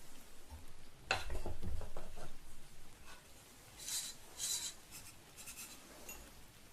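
Ceramic teaware being handled on a table. There is a knock about a second in, followed by light scraping and rubbing. A few short, bright clinks come near the middle.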